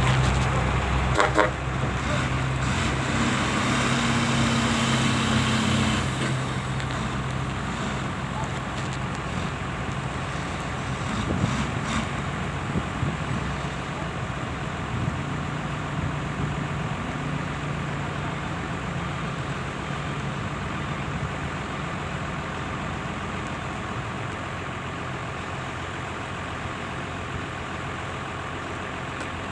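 Heavy diesel engines of trucks and earthmoving machinery running steadily, louder for the first six seconds and then settling to a lower, even hum.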